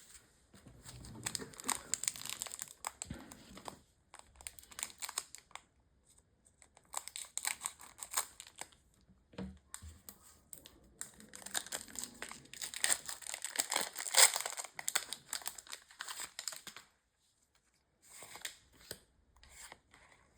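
Foil Pokémon booster pack wrappers crinkling and tearing as they are handled and opened. The sound comes in several crackly bursts with short pauses between them.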